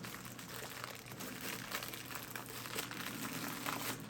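Packaging crinkling and rustling as it is handled and opened, in quick irregular crackles.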